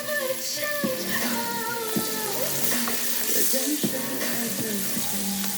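Garlic frying in a pan with a steady sizzle, under background music.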